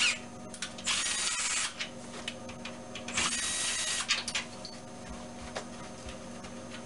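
Power drill with a 4 mm Allen bit running in two short runs of about a second each, about one and three seconds in, backing screws out of the wooden crib rail. Light clicks and knocks of handling fall between and after the runs.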